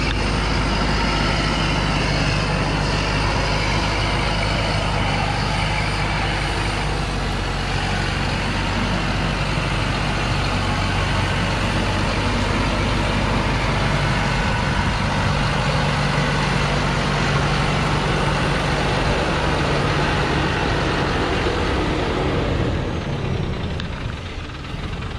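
Diesel engine of a truck loaded with acacia logs running steadily as it drives on a dirt track, its pitch shifting a little as it goes, getting somewhat quieter near the end.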